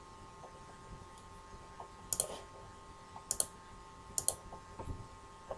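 Computer mouse clicks, faint: short sharp clicks, several in quick pairs, in small groups starting about two seconds in, over a low steady electrical hum.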